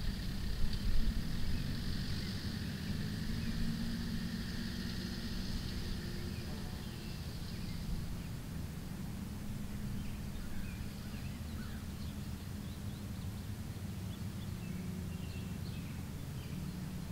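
Rural open-field ambience: a low rumble with the faint hum of a distant engine, a steady high insect buzz that fades out about halfway through, and scattered short bird chirps.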